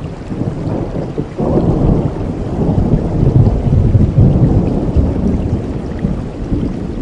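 Steady rain with a deep rolling rumble of thunder that swells suddenly about a second and a half in, then slowly fades.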